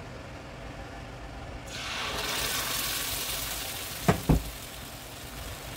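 Green tomatillo sauce poured into a hot, oiled frying pan, bursting into a loud sizzle about two seconds in that eases off over the next two seconds. Two sharp knocks come close together about four seconds in.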